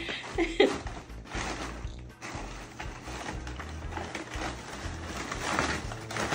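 Crumpled tissue paper and brown paper bags rustling and crinkling as a cat burrows through them, with polka music playing underneath.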